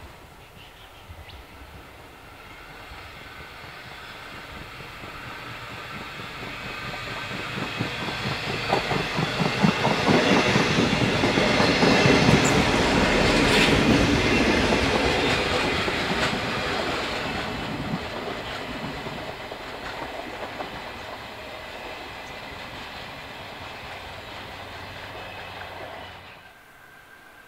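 Diesel rail motor 621-721 approaching, passing close and pulling away. Its engine and running noise grow to their loudest about halfway through, with wheels clacking over the rail joints as it goes by, then fade as it recedes.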